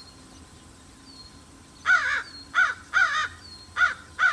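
A crow cawing: after a quiet start, a run of about six loud caws begins about two seconds in, some in quick pairs.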